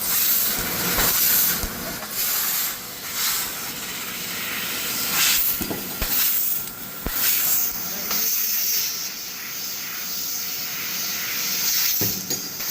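CNC laser cutter cutting steel plate: a steady hiss of the cutting jet that swells and eases every second or two, with a few short sharp knocks.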